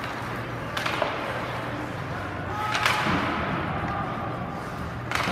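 Ice hockey play echoing in a large, mostly empty rink: three sharp knocks of sticks and puck, about a second in, about three seconds in and near the end, over a steady low hum and the hiss of skates on ice.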